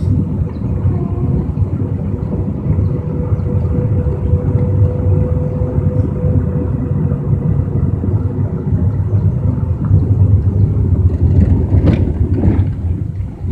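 A vehicle running: a steady low rumble with a constant hum.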